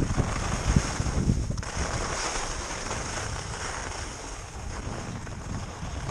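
Wind buffeting the microphone of a skier moving fast downhill, with the hiss of skis running over packed snow, strongest about two seconds in.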